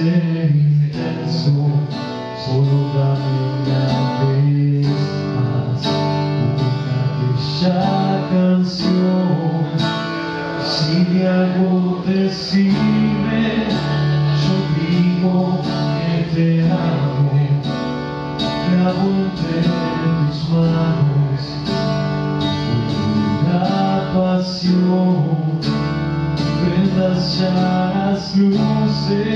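Live solo acoustic guitar strummed in a steady rhythm while a man sings into a microphone, a slow rock-ballad performance.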